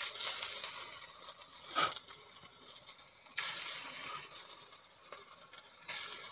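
Lentil-batter fritters frying in hot oil in a small iron kadai: the sizzle flares up suddenly three times as fresh batter is dropped in, then dies down each time. A short sharp knock just under two seconds in.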